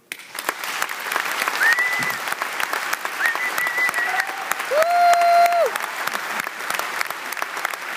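A large audience applauding steadily right after a speech ends. A few short pitched calls from the crowd stand out over the clapping in the first six seconds.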